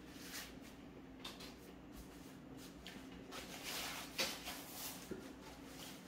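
Faint rustling of a paper napkin being handled and pressed to the face, loudest about three and a half to four seconds in, over a low steady hum.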